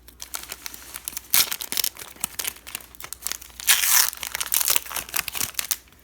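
Foil wrapper of a Pokémon card booster pack crinkling and tearing as it is pulled open, a dense run of crackles loudest about a second and a half in and again around four seconds in.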